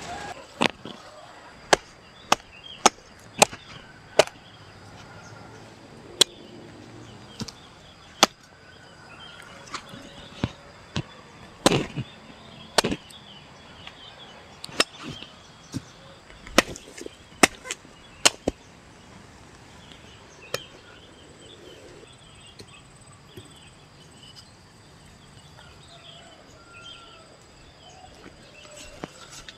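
Machete chopping cassava tubers off the pulled-up root clump: about twenty sharp strikes at uneven intervals, stopping about two-thirds of the way through.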